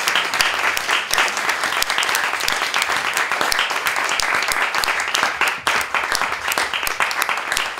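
Audience applauding, with many hand claps, some of them sharp and close by, at a steady level.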